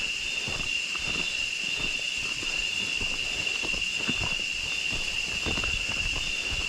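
Footsteps of people walking along a trail, irregular soft thuds, over a steady high-pitched drone of insects.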